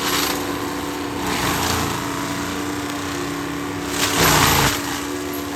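CAT 299D3 XE track loader and its HM418 mulching head running steadily, with bursts of shredding as the drum chews through thick manzanita stems. The loudest burst comes about four seconds in.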